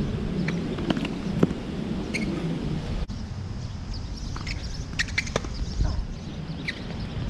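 Tennis rally on a hard court: sharp pops of rackets striking the ball and the ball bouncing, several in a few seconds, over a steady low rumble, with a few short high chirps.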